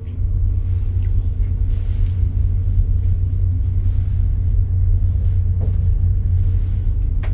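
Steady low rumble of a train running, heard from inside the carriage.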